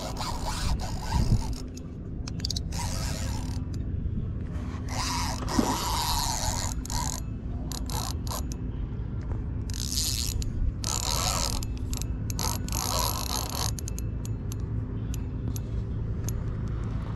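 Spinning reel being cranked in short spurts, its gears whirring and rasping, several bursts of half a second to two seconds each, over a steady low hum.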